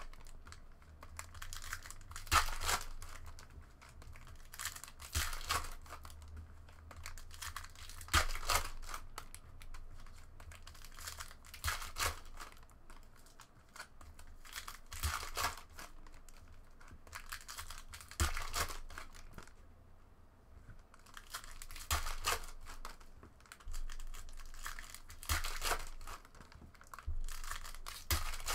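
Foil Panini Prizm basketball card packs being torn open and crinkled by hand, one after another, with a burst of tearing about every three seconds.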